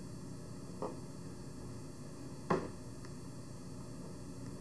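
Steady hiss and low hum of room noise, broken by two short clicks, the second louder.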